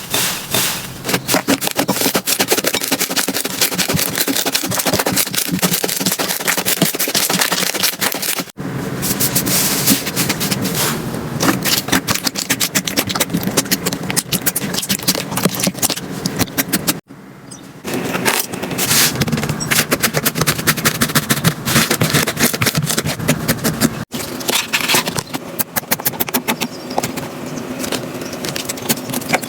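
Slime being handled close to the microphone, a dense run of rapid crackling, popping and clicking. It cuts off abruptly three times and starts again with each new clip.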